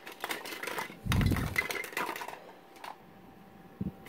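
Plastic toys clattering and knocking together as a hand rummages through a fabric toy bin. There is a quick run of clicks, then a louder burst of clatter with a dull thump about a second in, then a few single clicks.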